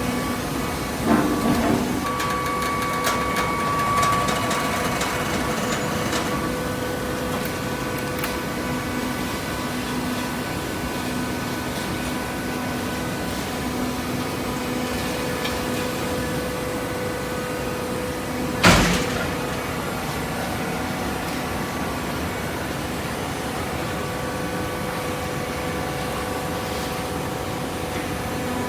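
Cardboard box baler's single-phase electric motor and hydraulic pump running with a steady hum, with a few knocks near the start and one sharp bang about two-thirds of the way through.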